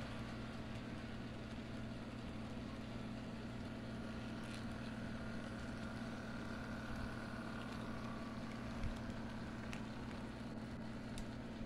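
HO-scale model passenger train running past on the layout track: a steady electric hum with the rolling of its wheels on the rails. A few faint clicks come through.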